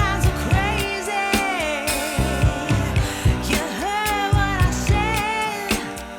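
Background music: a sung pop/soul song with a steady beat.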